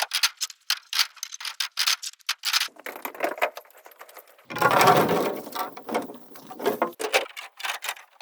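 Bamboo being handled and worked by hand: a quick run of sharp clicks and knocks, with a louder rough noisy stretch lasting about a second midway through.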